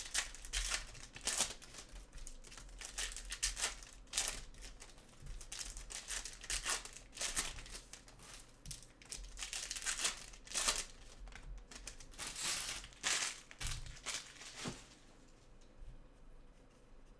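Crinkling and tearing of trading-card packaging being opened and handled, in a run of short rustles that die down about fifteen seconds in.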